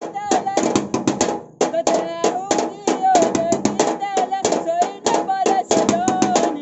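Music of rapid drumming with sticks, sharp strokes several to the second, with a wavering melody line running over them.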